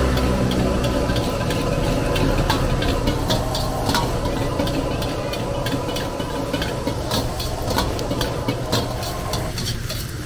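Stir-frying in a wok over a gas ring burner: a steady low burner hum and the hiss of vegetables in the hot pan, with many quick clinks and scrapes of a metal ladle against the wok.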